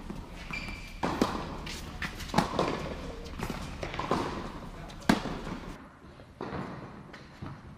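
Tennis rally: racket strings hitting the ball about once a second, each sharp hit echoing around a large indoor tennis hall.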